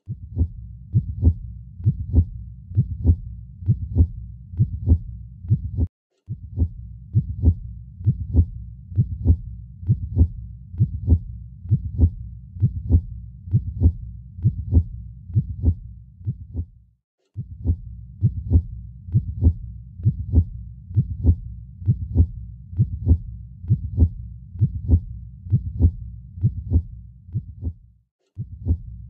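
Recorded heartbeat sound effect: slow, evenly repeating low thumps over a steady deep rumble. The loop cuts out briefly about six seconds in, again near seventeen seconds and once more near the end.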